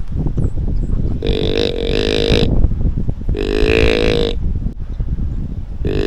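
A hand-blown deer call sounding three long, buzzy notes of about a second each, the last starting near the end.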